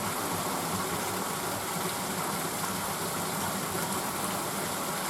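Steady rushing of water flowing over a small weir on a woodland stream.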